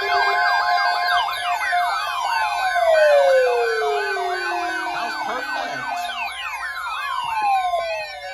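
Several sirens sounding at once: fast up-and-down yelping over steady tones, with wailing tones sliding down in pitch twice, once through the middle and again near the end.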